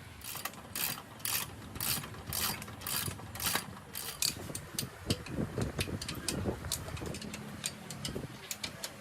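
Hand tool working on metal motorbike parts: short rasping strokes about two a second for the first few seconds, then quicker, irregular sharp clicks like a ratchet.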